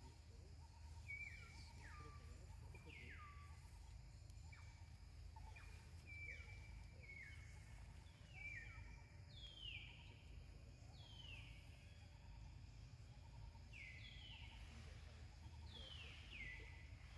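A bird calling faintly: a run of short whistled notes, each sliding down in pitch, about one a second with a brief pause partway through, over a low steady rumble.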